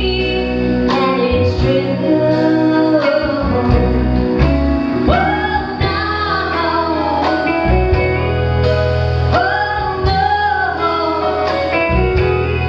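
A woman singing a country duet song live into a microphone, backed by a band with guitar.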